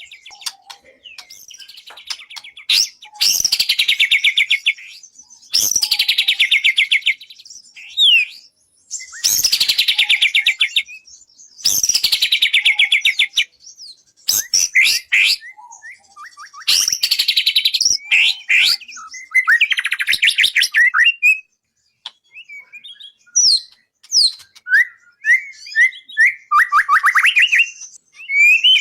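Murai batu (white-rumped shama) singing: loud phrases of rapid, rattling pulses, each about two seconds long and repeated every few seconds, with short whistled notes and slurs between them.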